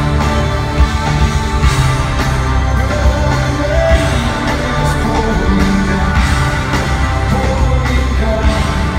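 Live rock band playing in a large arena, with drums, bass, keyboards and a sung vocal line, recorded from the audience.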